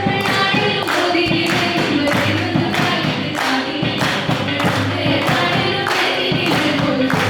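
Devotional group singing with percussion keeping a steady beat of about two strokes a second.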